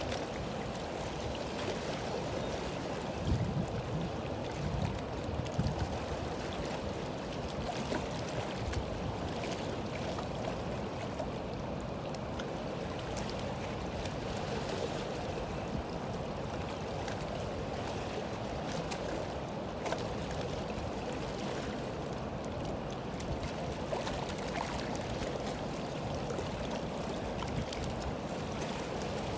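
Steady rush of fast-flowing river water along a rocky bank, with a few brief low thumps a few seconds in.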